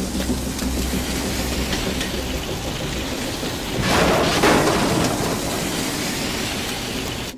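Dense rushing roar of a fire being fought with high-pressure hoses. It swells louder about four seconds in and cuts off abruptly at the end.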